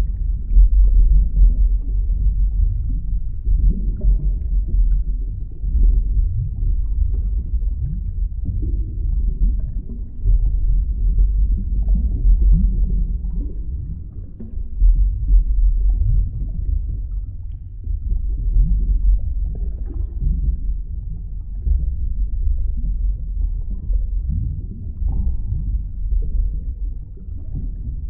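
Underwater ambience: a muffled, steady low rumble with many short rising bubble-like blips.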